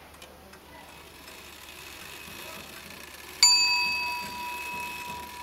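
A small metal bell struck once, about two thirds of the way in, giving a sharp ding with a clear high ring that fades slowly.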